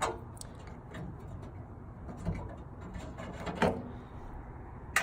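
Light clicks and scraping of a 10mm wrench working the threaded antenna mount on a Jeep, loosening the stock antenna, with a few separate small knocks.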